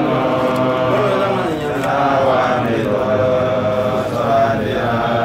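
A man chanting an Islamic religious recitation in long, melodic held notes that glide up and down.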